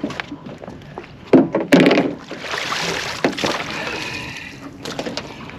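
A few clunks against the boat, then a couple of seconds of water swishing and splashing as a fish measuring mat is rinsed in the sea over the side, with a couple of lighter knocks near the end.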